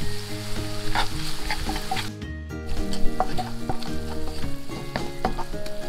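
Chopped onions and garlic sizzling in hot olive oil in a nonstick frying pan while a wooden spatula stirs and scrapes them, with scattered clicks of the spatula against the pan. The sizzle cuts out briefly about two seconds in.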